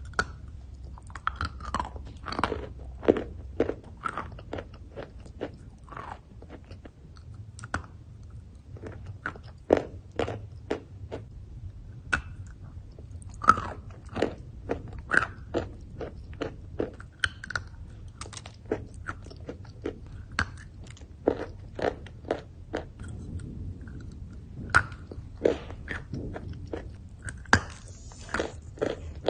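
Biting and chewing hard, crumbly chunks of chalk: sharp crunches at irregular intervals, one to a few a second, with softer grinding between them.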